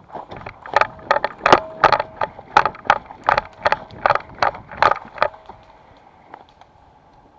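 Running footsteps crunching over dry ground or brush, about three steps a second, stopping a little past the halfway point.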